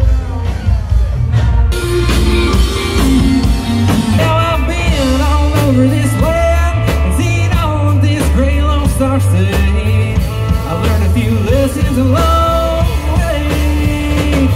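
Live rock band playing through a stage PA: electric guitars, bass guitar and drums, with a male lead vocal coming in about two seconds in.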